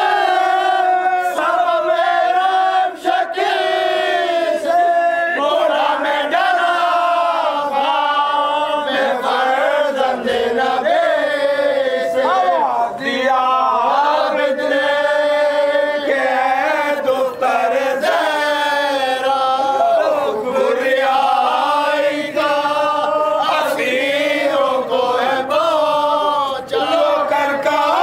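A group of men chanting a marsiya, a Shia mourning elegy, together in loud, continuous unison, led by one reciter singing into a microphone.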